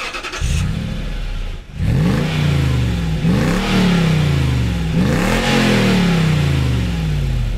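Lexus GX470's V8 exhaust, running through a MagnaFlow xMOD universal muffler with the No Drone Technology module, revved from idle about four times. Each rev climbs quickly in pitch and falls back slowly, the first one lighter. The exhaust note stays fairly subdued, since this is the most muffled, drone-cancelling setup.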